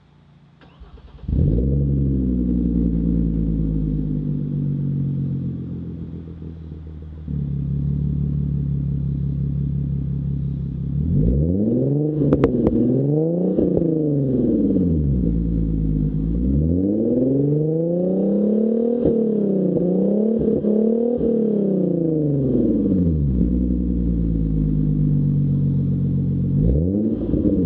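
Hyundai Genesis Coupe 3.8-litre V6 starting about a second in, flaring briefly and settling to idle, then revved several times, each rev rising and falling over two or three seconds.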